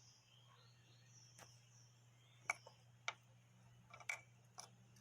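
Near silence over a steady low hum, broken by five or six faint, sharp clicks and taps of small metal engine parts being handled; the loudest comes about two and a half seconds in.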